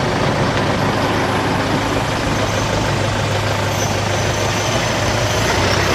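Steady rush of road noise from a moving car, with a low engine hum underneath, like traffic on a highway.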